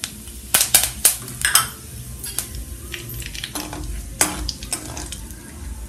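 Curry leaves dropped into hot oil with cumin seeds in a kadhai, spluttering and popping: a cluster of loud sharp pops in the first two seconds, then lighter crackling. A steel spoon stirs and scrapes the pan.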